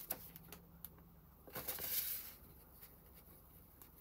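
Paper rustling as a large sheet is lifted and moved across the journal pages, rising to a brief swish about a second and a half in, with a few light taps and clicks of handling just before.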